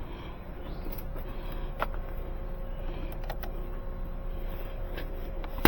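Scattered light metallic clicks of hand tools working a car battery terminal over a steady background hum, with one sharp, loud click near the end.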